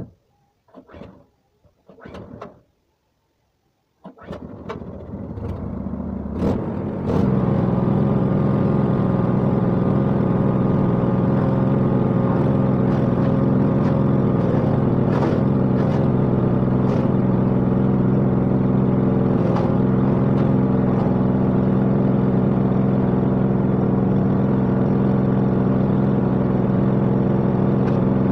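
A 6.5 hp GX200-clone single-cylinder gas engine starts about four seconds in, after a few short noises, and runs up to speed over about three seconds. It then runs steadily, belt-driving the table saw with no cut being made.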